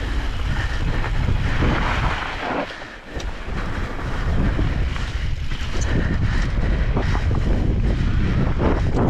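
Wind buffeting the microphone while riding an e-bike, a loud, steady rumble that eases briefly about three seconds in.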